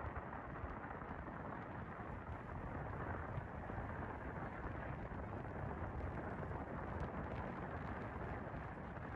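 Steady road and wind noise from a moving car, with a low rumble of wind buffeting the microphone.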